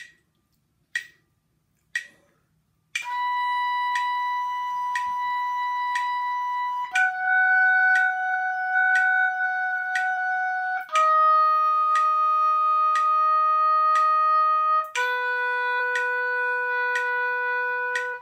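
Oboe playing a descending B major arpeggio in whole notes (B, F sharp, D sharp, B), each note held steadily for about four seconds, over a metronome ticking once a second at quarter note equals 60. The metronome ticks alone for the first three seconds before the oboe comes in.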